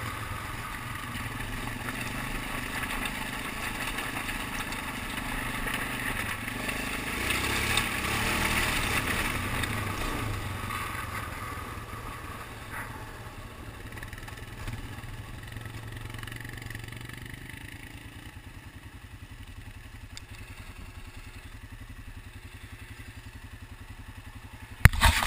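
ATV engine running while riding along a dirt trail. It is loudest around eight seconds in, then eases off and settles to a steady idle from about eighteen seconds as the machine stops. A few sharp, loud knocks come at the very end.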